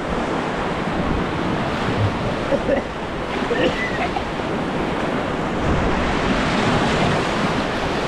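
Whitewater rapids rushing and churning around an inflatable raft, with wind buffeting the microphone.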